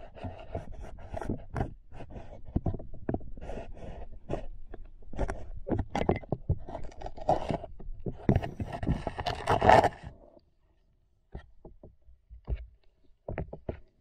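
Heard through an underwater camera: irregular scraping and knocking as giant musk turtles clamber against the camera and the plastic tank floor, loudest about ten seconds in. After that it is quiet apart from a few sharp clicks.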